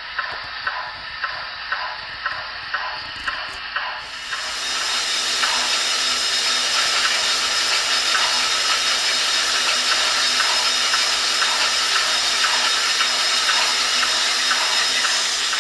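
Sound-equipped model PRR T1 4-4-4-4 steam locomotive: evenly spaced chuffs at about three a second for the first few seconds, then a steady steam hiss from its sound system.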